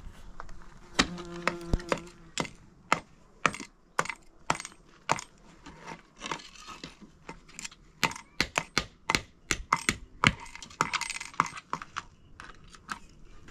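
Hammer striking nails into wooden door planks: sharp, irregular taps, roughly one or two a second, with a quicker run of blows past the middle.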